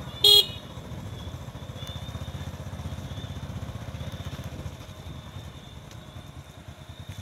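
Motorbike engine running steadily at low road speed, a low rumble, with one short, loud horn beep just after the start.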